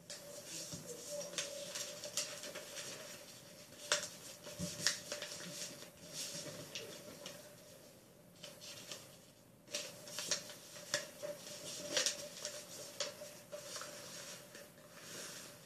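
A sheet of paper being folded and creased by hand on a wooden tabletop: irregular crisp rustles and crinkles, with sharper clicks as the folds are pressed down. A faint steady hum runs underneath.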